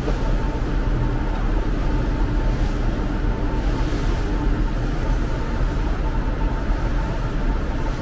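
Steady rush of churning seawater along a ship's hull under way, with wind noise and a faint steady hum underneath.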